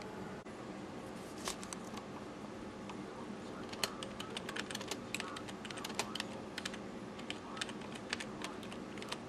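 Typing on a computer keyboard: irregular key clicks, a few at first and then quick runs from about four seconds in.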